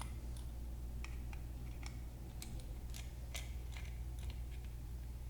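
Irregular small, sharp metal clicks as a T6 Torx driver works the tiny pocket-clip screws out of a Benchmade 580 Barrage knife, over a steady low hum.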